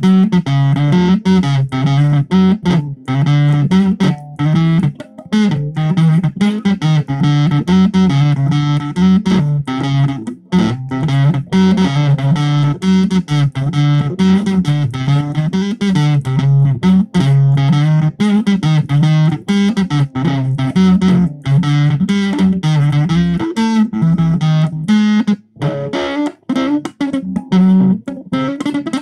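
Electric guitar played through a Zoom 506 bass distortion pedal, its distorted tone running a repeating low riff of short, choppy stabs with brief breaks between them. The playing gets more broken near the end.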